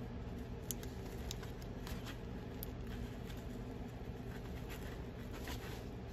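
A bent paper clip picking at the inner fitting of a drysuit pee valve: scattered small clicks and scratches, about half a dozen, over a steady low hum.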